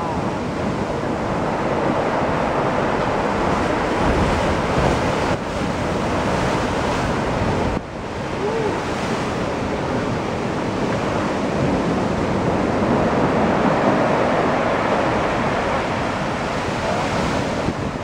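Heavy storm surf crashing and churning against a seawall and rocks, with wind buffeting the microphone.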